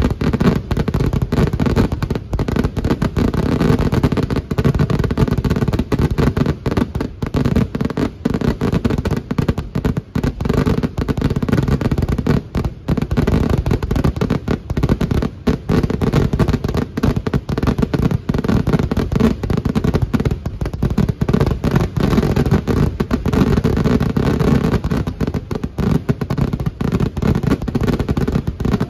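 Dense, continuous barrage of firework explosions: rapid overlapping bangs, many per second, with heavy low booms and barely a gap.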